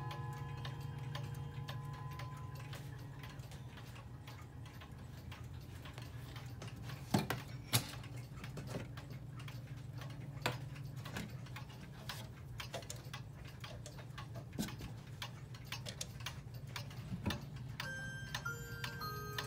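Antique Girod pendulum wall clock ticking steadily, with a couple of louder clicks about seven seconds in.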